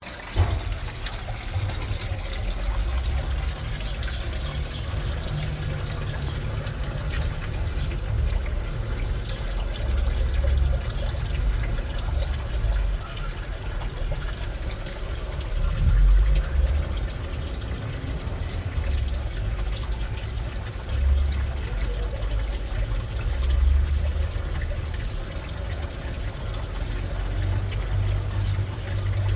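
Water trickling and pouring steadily into a small pond tub, over a low, uneven rumble.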